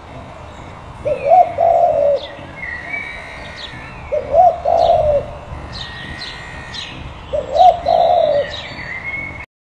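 Dove cooing, one short phrase repeated three times about three seconds apart, with small birds chirping higher and thinner over it. The sound cuts off suddenly near the end.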